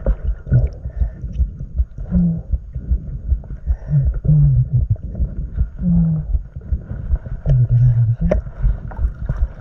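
Underwater sound: water churning and knocking against the microphone, with several short, low hums or groans, each under a second and the longest near the end. This is the unexplained 'strange sound in the water' heard when diving after a snagged lure.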